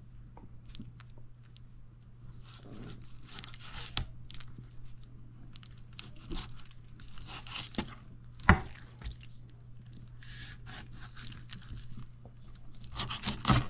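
Knife cutting and scraping raw chicken thighs off the bone, the skin and fat tearing away in short scattered rips and crackles. A sharp knock, loudest about eight and a half seconds in, with a smaller one about four seconds in.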